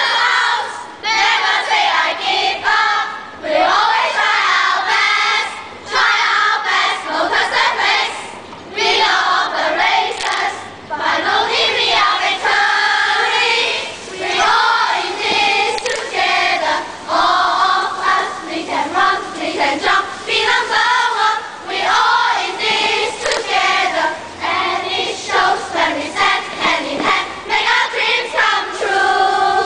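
A cheering squad of students singing cheers together in unison, loud, in short phrases with brief breaks between them.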